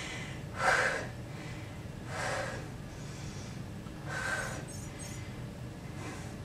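A woman breathing hard while straining to hold a seated V-sit ab hold: four noisy breaths about two seconds apart.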